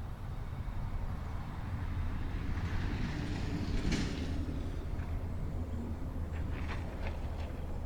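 A vehicle driving past, its noise swelling to a peak about four seconds in and then fading, over a steady low hum.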